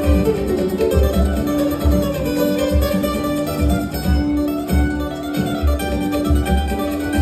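Choro music played on plucked string instruments, with a steady low beat about twice a second under the melody.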